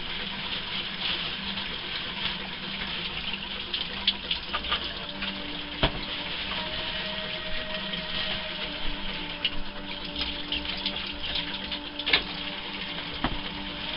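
Water running steadily from a kitchen tap as red potatoes are rinsed, with a few sharp knocks as washed potatoes are set down in a plastic tray.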